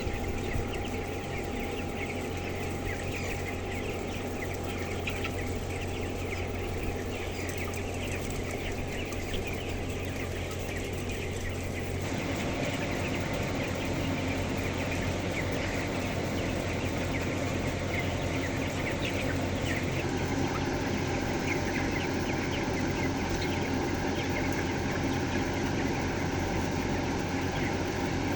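A large flock of broiler chickens clucking and peeping continuously, many birds at once, over a steady low hum.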